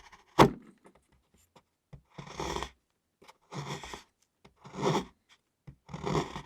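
A kitchen knife shaving a bar of chocolate in four separate rasping strokes, about one every second and a bit, after a single sharp knock about half a second in.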